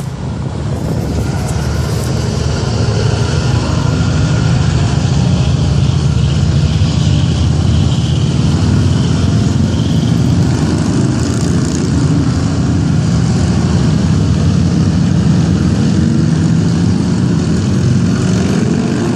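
A procession of motorcycles riding past one after another, a loud, steady low engine rumble that builds over the first few seconds, with cars passing among them near the end.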